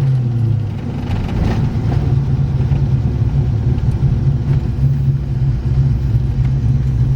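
1989 Ford Mustang's engine running at a steady pitch, with a low rumble underneath.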